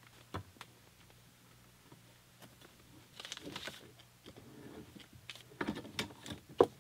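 Tubing cutter being turned around a 3/4-inch copper water pipe, its wheel scoring the copper. Light scraping and clicking starts about three seconds in and grows busier near the end.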